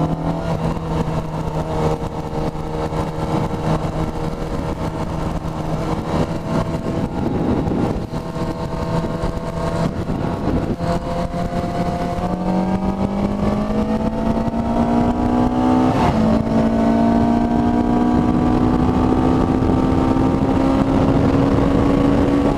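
A 1997 Yamaha YZF600R's inline-four engine running through a shorty exhaust under way. It holds a steady pitch for about half the time, then climbs in revs, with a brief break about two-thirds of the way through where it shifts, and climbs again. Wind rushes over the rider's microphone.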